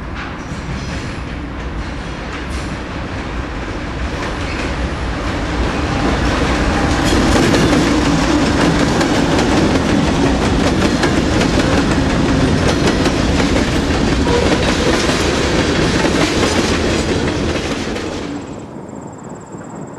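Norfolk Southern diesel locomotives hauling a freight train pass close by. The engines grow louder as they approach, then the wheels click rapidly over the rail, and the sound drops away sharply near the end.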